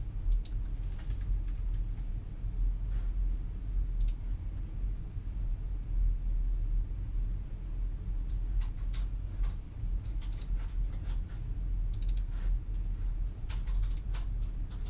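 Quiet office room tone: a steady low hum with scattered computer keyboard typing and mouse clicks, in short clusters of keystrokes during the second half.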